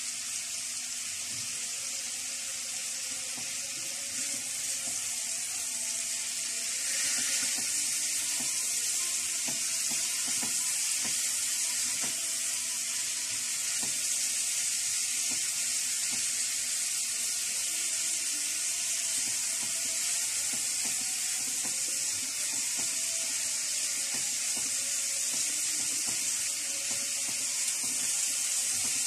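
Chicken breast strips sizzling steadily in hot butter and oil in a frying pan; the sizzle steps up in loudness about seven seconds in and holds steady.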